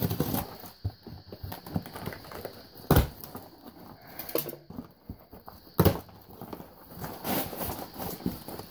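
A knife cutting through old cardboard and the cardboard flaps being scraped, bent and pulled back by hand, with a scatter of small scratches and clicks. Two sharp knocks stand out, about three seconds in and near six seconds.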